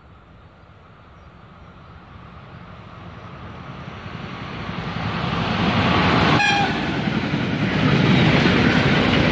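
A train approaching, its rail noise growing steadily louder until it passes close by. Just over six seconds in it gives one short, high horn toot.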